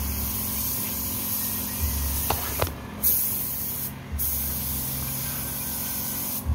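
Compressed-air paint spray gun hissing steadily as it sprays paint onto plastic motorcycle body panels. The trigger is let off briefly twice, about three and four seconds in.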